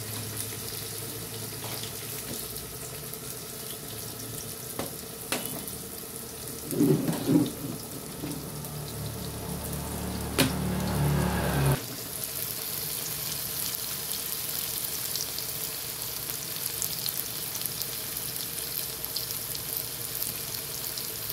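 Diced potatoes and carrots sizzling in hot canola oil in a small frying pan: a steady hiss with a few sharp clicks. A low hum runs underneath, swells louder about a third of the way in, and cuts off a little past halfway.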